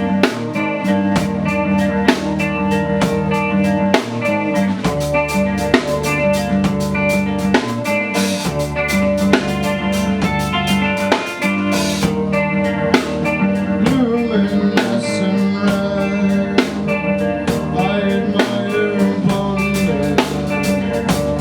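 Band music without vocals: a drum kit keeping a steady beat under guitar.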